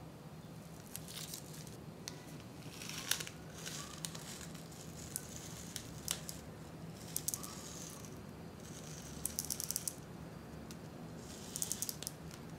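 Tiny round sugar sprinkles (nonpareils) shaken out of a small packet onto whipped cream in a cup, rattling and crackling in about half a dozen short bursts.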